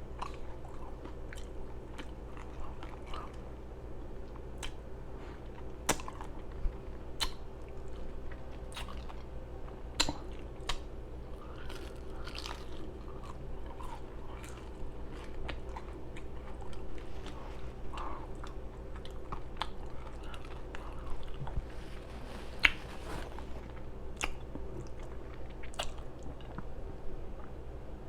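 Close-miked open-mouthed chewing of a pastrami burger and fries: wet smacking with sharp mouth clicks at irregular intervals.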